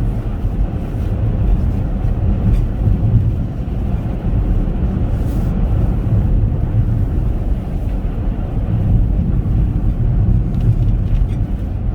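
Steady low rumble of road and wind noise inside the cabin of a Chevrolet Captiva SUV driving on a snow-covered road, with a crosswind blowing on the side of the car.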